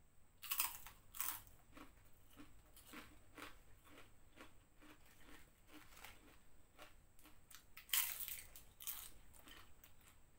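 Shrimp crackers (kerupuk udang) being bitten and chewed close to a clip-on mic: loud crisp crunches about half a second in and again about eight seconds in, with quieter crunchy chewing between.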